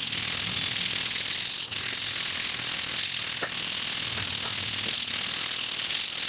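Bronze bristle brush scrubbing surface rust off a steel barbell shaft: a steady, hissy scratching.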